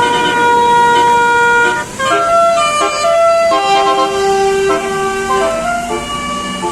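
Basuri telolet multi-tone bus horn with roof-mounted trumpets, playing a melody of chords. A long held chord is followed by a brief break near two seconds in, then a run of shorter notes and another long, lower note.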